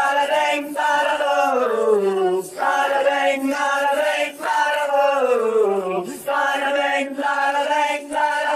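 Isolated, multitracked male rock vocals chanting a wordless 'da-da-ding' refrain with no instruments behind them. The phrases come in quick succession, and several slide down in pitch at their ends.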